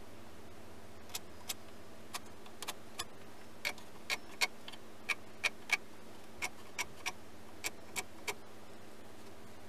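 A series of about eighteen sharp, light taps at an uneven pace, starting about a second in, over a faint steady low hum.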